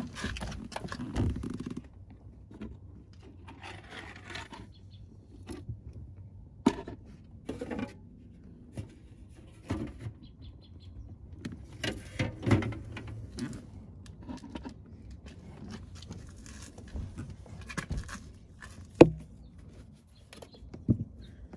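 Scattered clicks, knocks and scrapes of hands handling plastic steering-column trim and parts on a Jeep Cherokee XJ, with one sharp click near the end.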